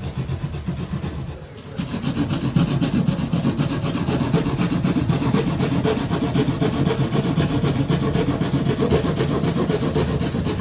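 A saw cutting through a wooden panel, with a steady rasping rhythm. It pauses briefly near the start, then cuts on louder and stops at the end.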